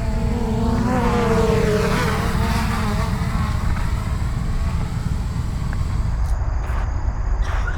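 Engine of a vehicle passing close by, its buzzing note sliding in pitch as it goes past, over a steady low rumble. A few sharp clicks near the end.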